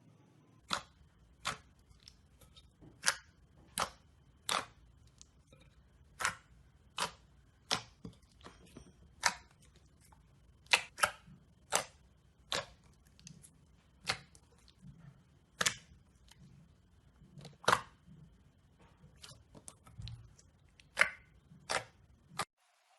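Slime being pressed and played with, giving a run of sharp clicking pops about every three-quarters of a second that stops shortly before the end.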